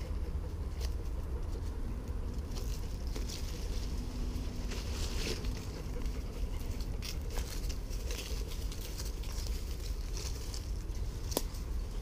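Footsteps crunching and rustling through dry grass and fallen leaves, over a steady low rumble on the microphone, with one sharp click near the end.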